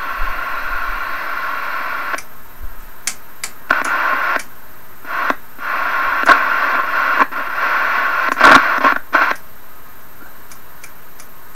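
A Johnson Messenger vacuum-tube CB radio's speaker hisses with receiver noise while its channel selector is clicked through its crystal positions. The hiss cuts out and comes back several times, with sharp switch clicks along the way, and no station can be heard.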